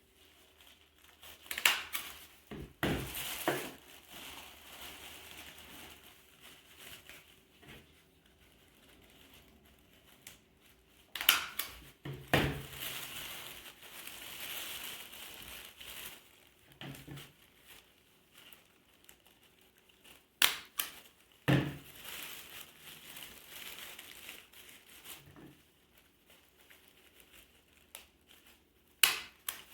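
Paper and tissue paper crinkling and rustling as they are handled, broken by sharp clacks of a stapler, in pairs about a second apart, four times.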